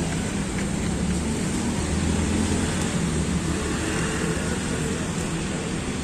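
Steady rumble of road traffic with an even hiss.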